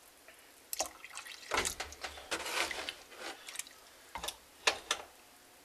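Wooden spoon stirring shredded red cabbage in a pot of water: a string of irregular wet swishes and small splashes.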